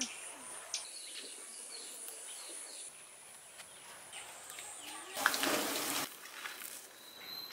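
Outdoor garden ambience: a steady high-pitched insect buzz for the first few seconds and scattered faint bird chirps, with a brief burst of broad noise about five seconds in.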